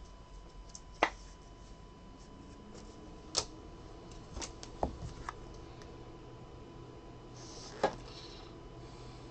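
A few scattered sharp clicks and taps of trading cards and rigid plastic toploaders being handled, as a card is slipped into a toploader and set down.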